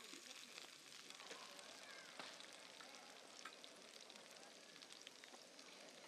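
Diced potatoes frying in a pan on a portable gas-cylinder camping stove: a faint, steady sizzle with small scattered crackles.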